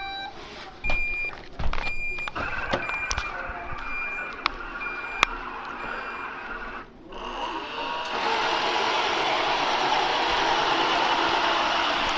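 Roomba Sage robot vacuum giving a short high beep about every 0.7 s, with clicks, for several seconds. About seven seconds in, its vacuum motor and brushes start up and run steadily and loudly.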